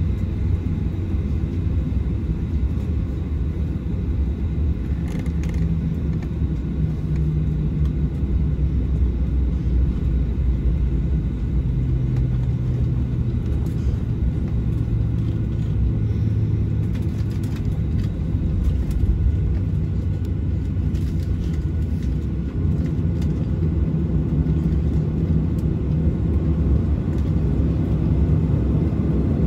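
Cabin sound of a Boeing 737-700 taxiing after landing: a steady low rumble from its CFM56 engines near idle, with a faint engine hum that shifts slightly in pitch.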